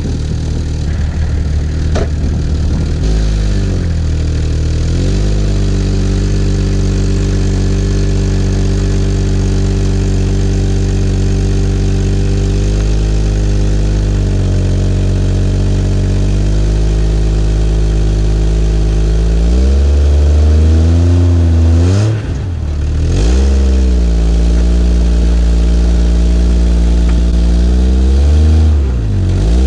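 Jeep Grand Cherokee engine revving under load as it pulls a magnet-fishing line attached to something heavy underwater. The revs climb about three seconds in and again around twenty seconds in, dropping briefly twice as the throttle is let off.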